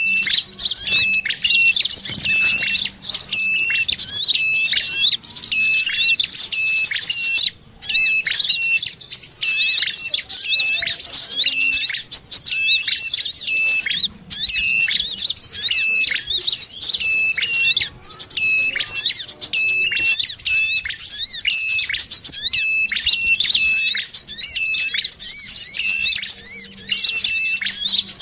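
Bird-lure recording of small birds: a dense, continuous high chattering mixed with ashy tailorbird and brown-throated sunbird calls, including a short note repeated about twice a second. The sound drops out briefly twice, about a quarter and halfway through.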